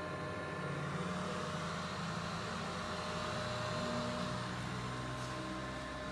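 Steady hum of an electric motor-driven machine run from a variable speed drive, with several steady whine tones over a low rumble.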